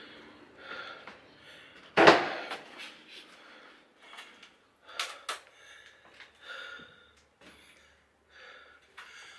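A man breathing hard, in and out roughly once a second, after a long climb up a crane in the heat. About two seconds in there is one loud bang that rings on briefly, and a few sharp knocks follow around five seconds.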